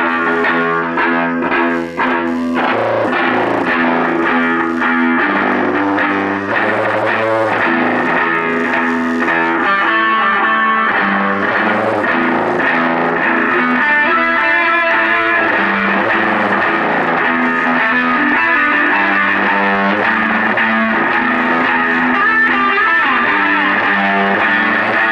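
Guitar music, with electric guitar through effects and some distortion, and steady sustained chords.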